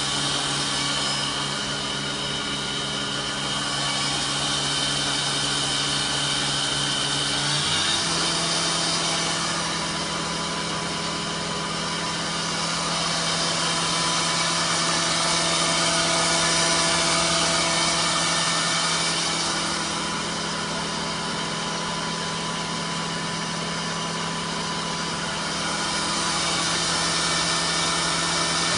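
Kitamura Mycenter 3X vertical machining center's spindle running at a steady speed with a hiss behind its hum, stepping up to a higher pitch about eight seconds in and holding there.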